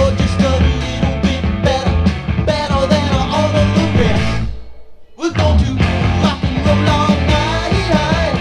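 Rock song with a singing voice over a driving band, played from a vinyl record. The music drops out for about half a second just past the middle, then kicks back in.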